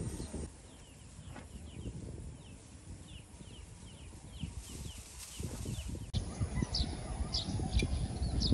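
Birds chirping, a quick series of short falling notes, over a low rumble. About six seconds in the rumble gets louder and sharper, higher calls come in.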